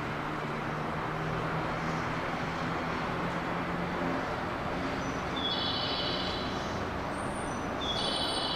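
A JR West 287 series electric train standing at a station platform, a low steady hum from its equipment over a constant noisy background. Two short high-pitched electronic tones sound about halfway through and again near the end.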